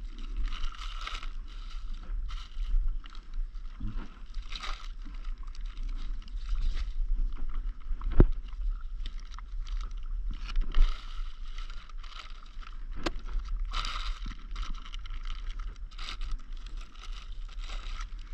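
Wind buffeting the microphone, with water slapping against an inflatable paddleboard and plastic and cloth bags rustling in handling. Two sharp clicks, one about midway and one later.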